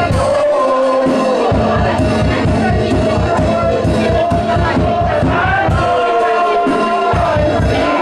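Loud live church worship music: a fast, driving drumbeat under many voices singing and crying out together.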